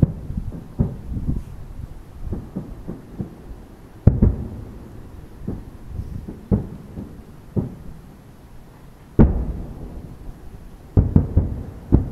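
Aerial fireworks shells bursting: a series of deep booms, each trailing off in a rumble, with smaller pops in between. The loudest come about four seconds in and about nine seconds in, with a quick cluster of bangs near the end.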